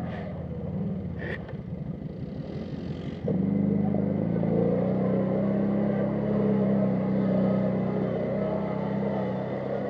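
ATV engine running at low revs with two short knocks in the first second and a half. About three seconds in, the throttle opens and the engine settles into a louder, steady drone.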